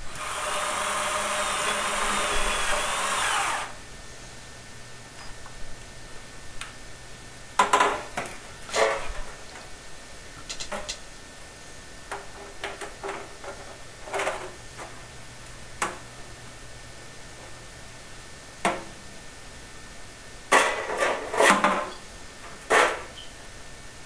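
Screw gun whining as it drives a self-tapping screw into sheet-metal flue pipe for about three and a half seconds. After that come scattered short knocks and rattles, loudest in a cluster near the end.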